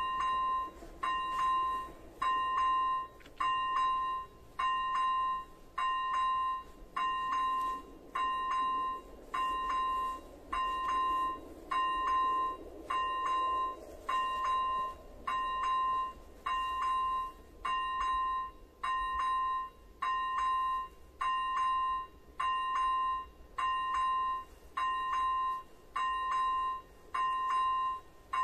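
Electronic warning bell (type Elektronický 01) of an AŽD 97 level-crossing signal ringing. It is a steady, evenly repeated ding about once a second, starting as the red lights come on to warn that a train is approaching.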